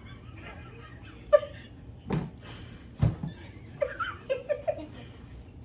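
Short bursts of giggling from two girls, with a few short knocks in the first half.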